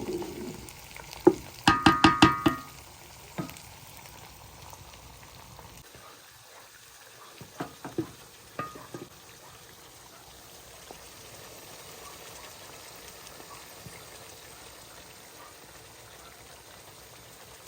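Food frying in a pot with a steady sizzle, while a metal utensil strikes the pot: a quick run of ringing clinks about two seconds in and a few more around eight seconds in.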